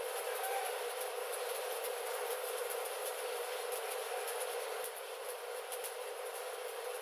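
Stick (SMAW) welding arc on a steel pipe flange joint, crackling and sizzling steadily as the electrode burns.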